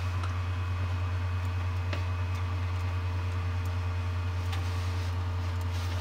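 Creality Ender 5 Pro 3D printer's Z-axis stepper motor running steadily as it raises the print bed: a steady mechanical hum with a faint regular pulsing.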